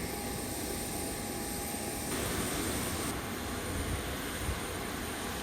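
Boeing 737 jet engines running steadily: a continuous rushing hum with a thin high whine, with no rise in pitch.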